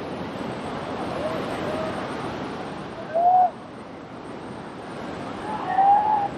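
Steady wash of surf and wind. Over it come several short calls that rise and fall in pitch, with louder ones about three seconds and about six seconds in.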